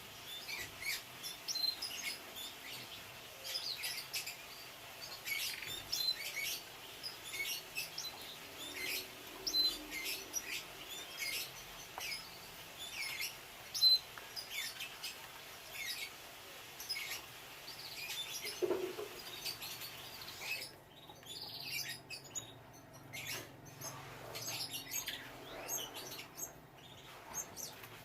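Canaries chirping: many short, high chirps and tweets at an irregular pace, with a few soft clicks among them near the end.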